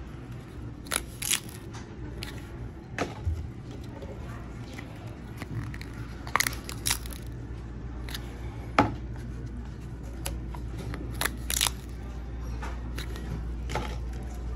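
Paper pull-tab tickets being torn open by hand: scattered short sharp snaps and rips as the perforated cardboard tabs are peeled back and the tickets handled, over a low steady hum.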